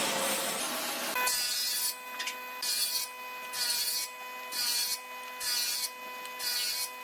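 Hand tool worked back and forth on wood, rubbing or rasping in regular strokes about once a second, over a steady machine hum. A denser scraping noise fills the first second.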